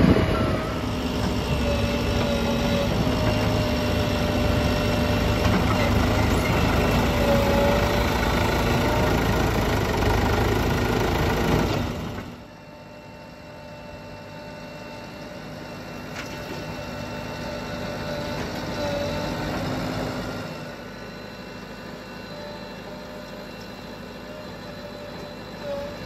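JCB 3DX backhoe loader's diesel engine running steadily, heard up close. About halfway through the engine sound drops abruptly to a quieter, more distant run, swelling briefly before easing off again.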